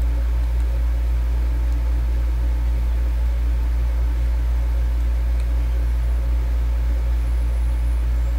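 A steady low hum with a faint even hiss, unchanging throughout, with no distinct events.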